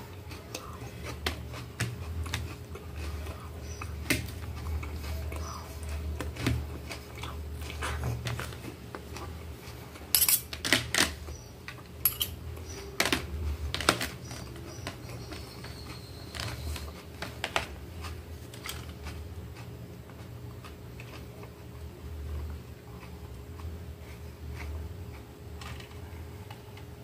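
Close-miked eating: chewing, with a metal fork and knife clicking and scraping against a plate. The clicks come in a busy cluster about ten to fourteen seconds in, then thin out.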